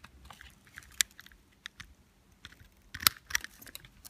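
Scattered small clicks and crackles from toy figures being handled among dry leaves and plant stems, with a sharp click about a second in and a cluster of clicks about three seconds in.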